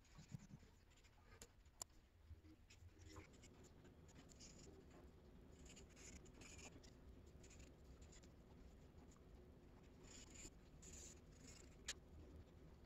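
Faint felt-tip markers rubbing across paper in short colouring strokes, with a few light clicks and taps of the marker.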